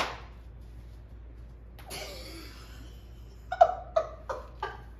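A woman laughing in a quick run of about five short bursts near the end, after a breathy exhale about two seconds in. A short sharp sound at the very start.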